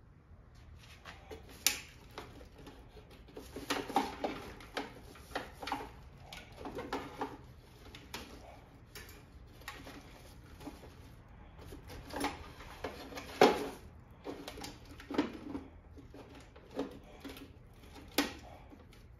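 Irregular clicks, knocks and clinks of hand tools and metal parts being handled during espresso machine repair work, with a few sharper knocks about two seconds in, in the middle and near the end.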